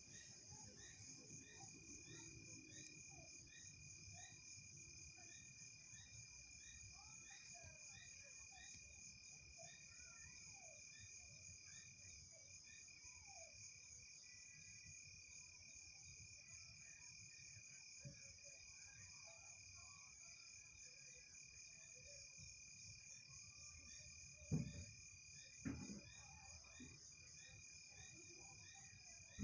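Night chorus of crickets: a steady high trill with a second steady, lower tone beneath it, and short evenly spaced chirps in the background. Two brief soft knocks come near the end.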